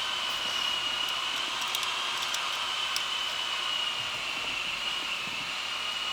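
A fan running steadily, an even whir with a high, slightly wavering whine, and a few faint clicks.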